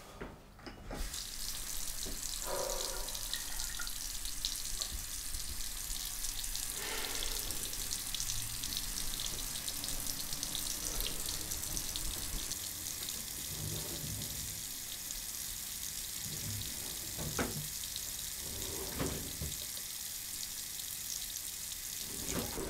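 Bathroom sink faucet turned on about a second in and left running steadily, water splashing into the basin.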